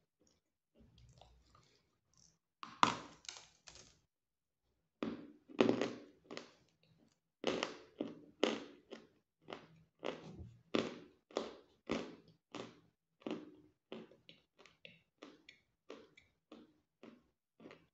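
Dry bread croutons crunched between the teeth while being chewed. A loud cluster of crunches comes about three seconds in, then after a short pause a steady run of crunches about two a second, growing fainter toward the end.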